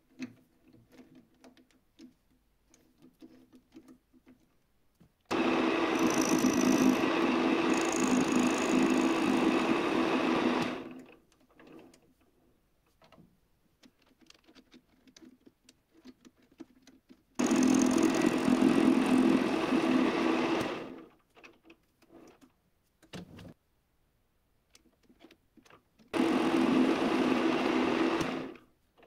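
Electric power tool motor running in three separate runs of a few seconds each, at a steady pitch. Each run starts abruptly and winds down at the end. Light clicks and taps come in the gaps between runs.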